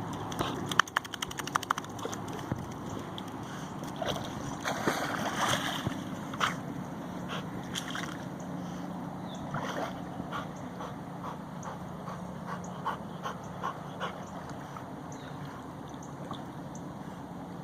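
Water splashing and sloshing in irregular bursts, densest about five seconds in, over a low steady hum.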